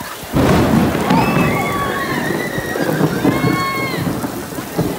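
Heavy rain falling on pavement, with a loud rumble of thunder breaking in suddenly about half a second in and rolling on.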